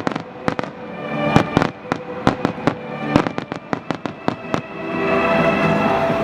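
Aerial fireworks bursting in a rapid string of sharp bangs, echoing off buildings, that stops about four and a half seconds in. Music grows louder under the last bursts and takes over near the end.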